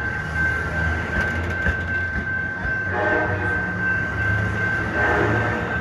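Diesel passenger train at the station: steady low locomotive engine rumble with a steady high whine, a few sharp clicks about a second in, and two brief louder sounds about 3 and 5 seconds in.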